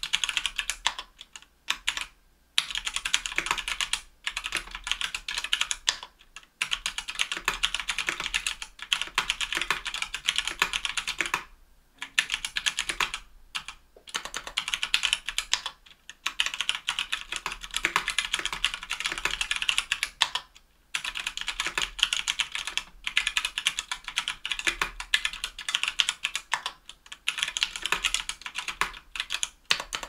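Fast typing on a KBDfans Tofu60 aluminum-case keyboard with an aluminum plate, stock Everglide Jade Green tactile switches and GMK Jamon keycaps: a dense run of crisp key clicks and bottom-outs, broken by short pauses every few seconds.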